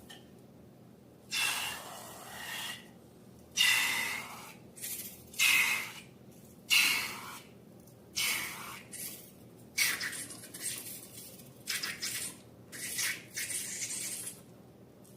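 Slime being squished and stretched by hand, a wet squelching sound in about a dozen short bursts, each under a second, with short pauses between.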